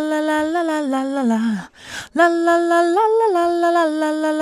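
A mono backing-vocal sample playing back solo: a single voice singing long held notes that step up and back down, the line falling away about one and a half seconds in, a short breath, then the same phrase again. The voice is unprocessed mono, sitting in the middle of the mix.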